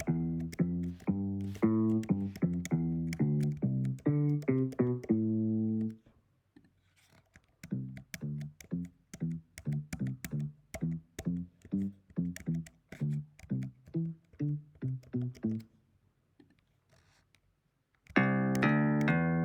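GarageBand sampled bass guitar patches playing short demo lines: a run of bass notes ending on a held note; then, after a short gap, a quieter part of short detached notes about two a second. After a gap of near silence, a brighter bass part starts near the end.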